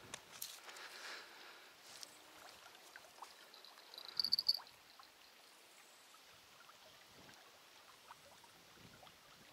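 A small bite-alarm bell on a fishing line jingles briefly about four seconds in, a few high ringing tones over faint outdoor background.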